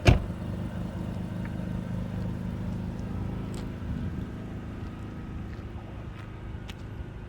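Acura NSX driving with a steady low engine hum, with one sharp click just at the start.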